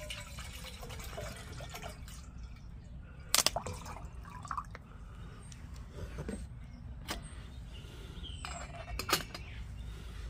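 Water poured from a plastic bottle into a titanium cup for the first couple of seconds, then a few sharp clicks, the loudest about three and a half seconds in and another near nine seconds.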